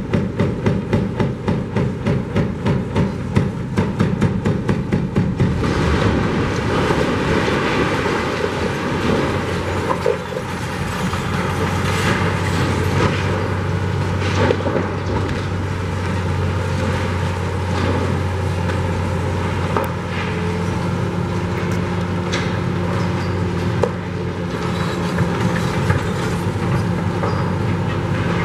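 A tracked demolition excavator's diesel engine running, with metallic clanks and rattles as the machine works. A fast rhythmic pulsing in the first five or so seconds gives way to a steady engine drone, with a few sharp knocks, and a higher engine note joins about two-thirds of the way through.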